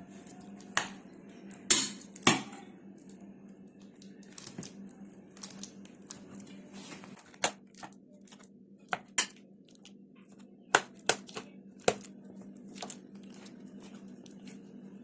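A spoon mashing hot boiled nendran bananas in a bowl: irregular clicks and knocks of the spoon against the bowl, with soft squishing in between.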